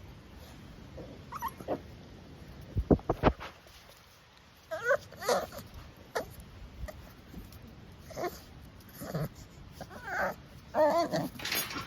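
Blue Staffordshire Bull Terrier puppy whimpering in a series of short squeaky whines, the longest and loudest near the end. About three seconds in there is a quick run of four sharp knocks, the loudest sound heard.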